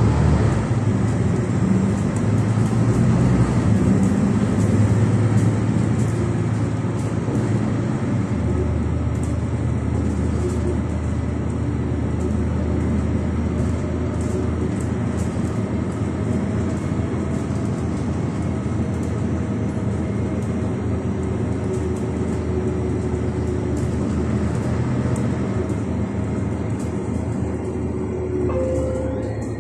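Ride noise heard inside a Mercedes-Benz Citaro 2 Hybrid city bus as it pulls away from a stop and drives on: a steady low engine drone with road noise, a little louder at first, its lowest note changing about eight seconds in.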